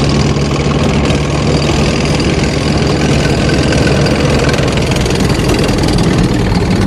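Steady engine-like motor running at an even pitch with a low hum, cutting off abruptly at the end.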